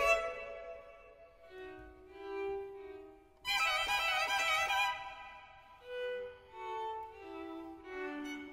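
Violin music with bowed notes. A loud, bright passage starts suddenly about three and a half seconds in, with softer held notes before and after.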